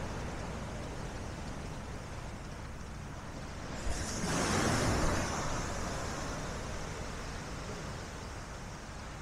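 Sea waves washing onto the shore over a steady rush of surf and wind, with one wave breaking and surging about four seconds in, then slowly drawing back.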